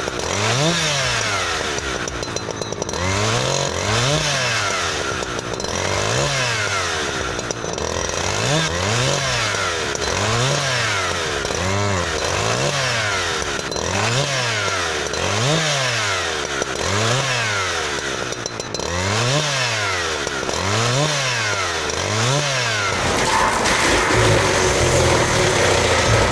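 Husqvarna 365 two-stroke chainsaw, revved up and down over and over, its engine pitch rising and falling about every second and a half. Near the end the revving stops and a different steady mechanical noise takes over.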